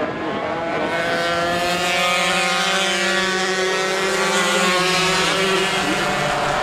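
A pack of two-stroke racing motorcycles at high revs through a corner, several engines overlapping. The sound grows louder over the first couple of seconds, and the engine notes shift in pitch as the bikes pass and change gear.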